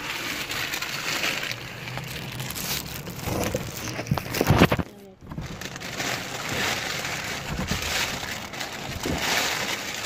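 Clothes and corrugated cardboard rustling and rubbing as clothing is pressed down into a packed cardboard box, louder for a moment about four seconds in.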